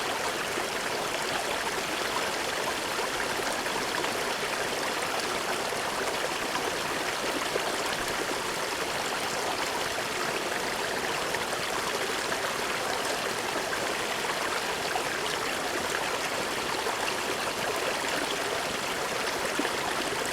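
Small brook running steadily over rocks, a continuous rushing and trickling of water.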